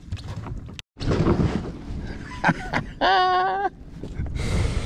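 A man's drawn-out whoop of excitement, held for most of a second about three seconds in, between bursts of rushing noise.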